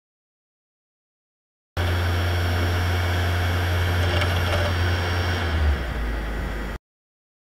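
Dead silence, then a steady low mechanical hum with a hiss over it that starts abruptly about two seconds in. The hum drops in pitch a second before it cuts off suddenly near the end.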